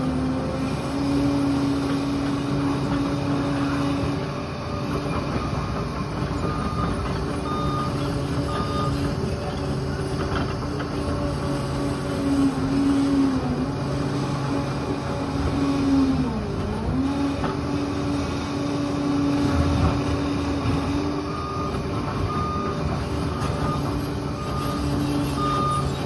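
Liebherr 746 crawler bulldozer's diesel engine working under changing load, its pitch sagging and recovering, with one deep dip about two thirds of the way through. A reversing alarm beeps about once a second in two runs, a quarter of the way in and again near the end.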